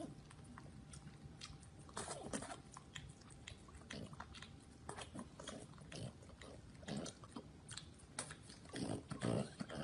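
French bulldog licking and chewing a pink ice pop: faint, irregular mouth clicks and smacks, a little louder near the end.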